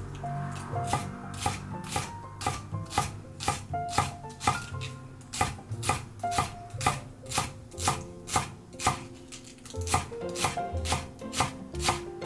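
Chef's knife finely chopping turnip greens on a wooden cutting board, even strikes about twice a second that quicken near the end. Light background music plays underneath.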